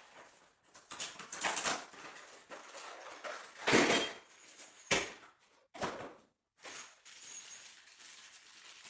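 Rustling and clattering of flat-pack cabinet parts and packaging being handled: a few irregular rustles, the loudest about four seconds in, and sharp knocks near five and six seconds.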